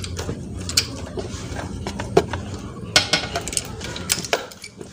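Metal hand tools and parts clinking in a few sharp, irregular knocks as the spark plug is put back into a Yamaha Mio scooter's engine after a spark test. A low steady hum runs underneath.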